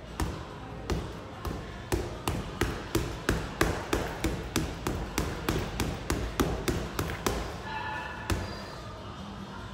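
Boxing gloves punching a hanging Century heavy bag: a few slower single strikes, then a fast run of thudding punches at about three a second, and one last strike near the end.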